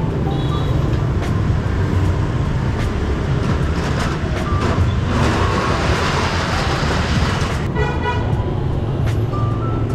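Busy street traffic of motorbikes and scooters: a steady engine hum with a louder pass around the middle, and short horn toots, the clearest about eight seconds in.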